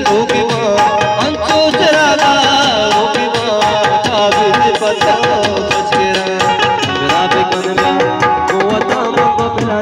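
Live Balochi wedding music: a singer and harmonium carrying a wavering melody over a fast, steady hand-drum rhythm.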